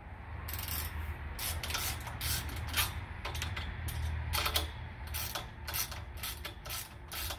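Ratchet wrench clicking in a string of short, irregular strokes, tightening the nuts on an antenna's mast-mount clamp.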